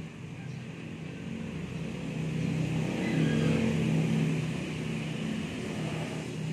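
A motor vehicle engine running with a steady low drone, growing louder about two seconds in and easing off again after about five seconds, as if a vehicle passes close by.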